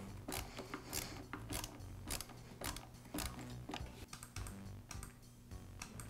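Screwdriver turning the screw of a worm-drive hose clamp as it tightens on a drain auger's air-switch hose: a run of light clicks, about two a second, that stops about five seconds in. Faint background music underneath.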